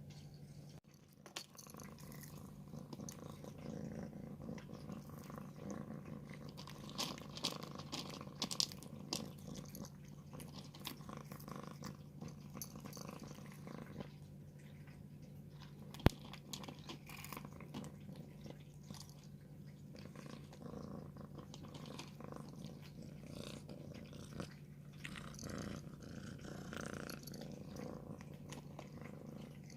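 A cat purring steadily while eating, with crunchy chewing and bursts of clicks, and one sharp click about 16 seconds in.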